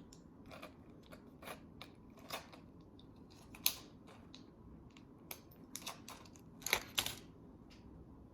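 Scissors snipping: a run of quick, uneven snips, the loudest about three and a half seconds in and a cluster near the end.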